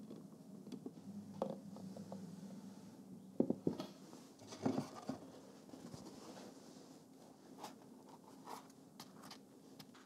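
Soft knocks, clicks and scrapes of hands moving a stainless cake frame on its board and laying a sponge layer into it, with the loudest knocks a few seconds in, over a low steady hum.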